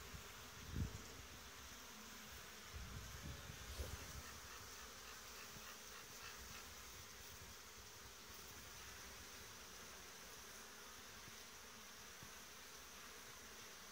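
Faint, steady buzzing of honeybees at a hive entrance as foragers come and go, with a few low bumps in the first four seconds.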